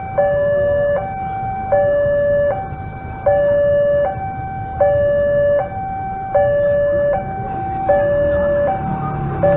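Railway level-crossing warning alarm sounding a steady two-tone electronic signal, a lower and a higher tone alternating about every three-quarters of a second: the warning that a train is approaching the crossing. Near the end a motorcycle engine's low rumble grows beneath it.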